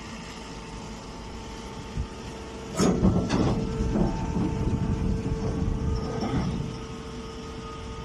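Hydraulic alfalfa and straw baler running with a steady hum. About three seconds in, a loud burst of clattering machine noise starts as the press works, then dies back to the hum after a few seconds.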